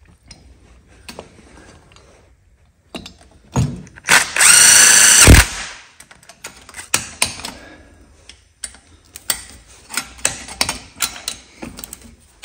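A cordless drill runs for about a second, about four seconds in, spinning a cylinder-head bolt down. A few seconds later comes a run of sharp ratcheting clicks from a torque wrench tightening the head bolts, with light metal handling knocks between.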